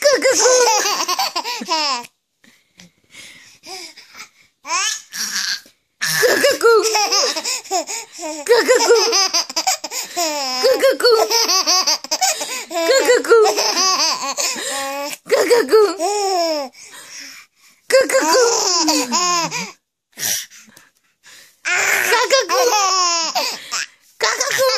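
A baby laughing hard during a game of peekaboo, in several long fits of laughter broken by short pauses.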